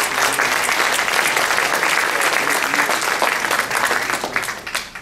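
Audience applauding, the dense clapping dying away near the end.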